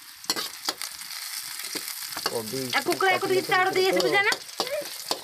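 Cabbage greens frying in oil in a metal pan: a steady sizzle, with the spatula clicking and scraping against the pan as they are stirred. A voice is heard for about two seconds in the middle.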